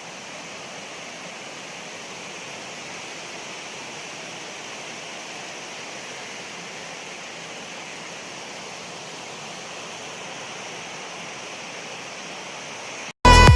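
Waterfall: water rushing at a steady, constant level, an even hiss. It stops abruptly near the end.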